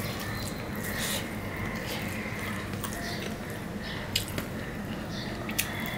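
Eating by hand: fingers kneading rice and curry on a steel plate, with soft wet squishing and chewing. A few light clicks, two sharper ones about four and five and a half seconds in.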